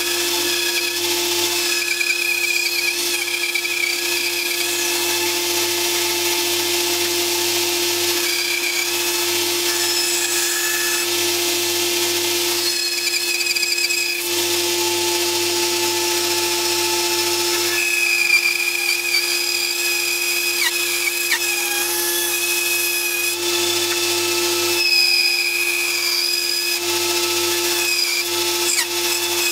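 Bandsaw running with a steady hum while its narrow blade cuts a small block of wood along curved lines; a higher whine from the cut comes and goes and shifts in pitch as the block is fed and turned.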